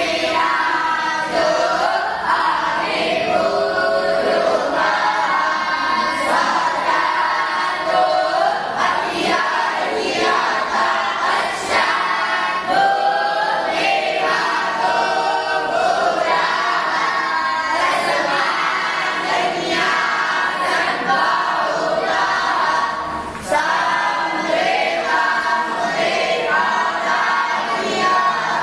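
A group of young voices singing a chant together in unison, with a brief break late on.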